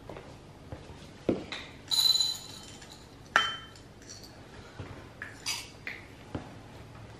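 Dry dog food being scooped into a ceramic dog bowl: a short rattle about two seconds in and a sharp ringing clink of the scoop against the bowl a second later, with a few lighter clicks and soft thumps of slippered footsteps.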